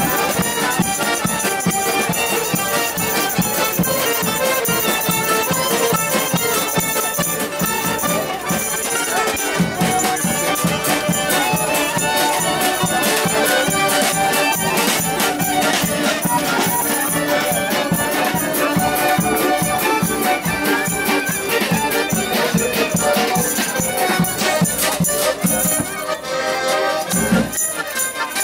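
Band music with a steady beat and hand percussion.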